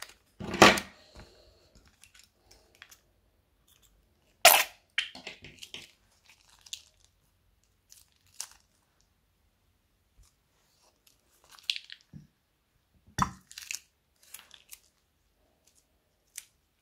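Small plastic bags of coloured glue being squeezed out by hand: the plastic crinkles, and the glue and trapped air make sharp crackles and pops as they are forced out through the bag's corner. The sounds come in separate bursts, louder ones near the start, about four seconds in, and near the end, with scattered small ticks between.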